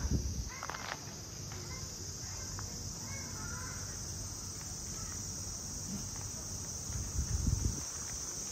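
Steady, high-pitched insect chorus droning without a break, with a few faint chirps in the first half and low thuds near the start and again around seven seconds in.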